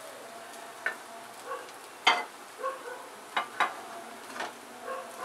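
Aloo tikkis sizzling faintly on a tava just after the gas is turned off, while a metal spoon scrapes and clinks against the griddle as they are lifted out. The loudest clink comes about two seconds in, with two more close together a little after three seconds.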